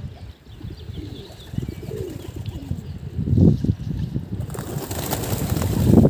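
Pigeons cooing in low, repeated notes, then a rising rush of flapping wings from about halfway through as pigeons take off.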